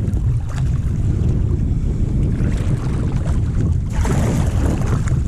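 Wind buffeting the microphone with a heavy low rumble, over water lapping and splashing against a kayak's hull. The splashing hiss grows louder about two seconds in and again about four seconds in.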